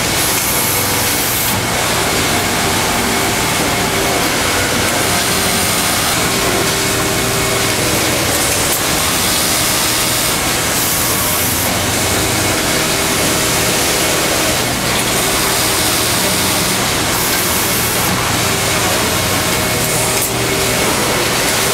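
Industrial sewing machine stitching a white binding onto red fabric, running in repeated bursts of one to a few seconds, over the steady hum of other machines on a garment-factory floor.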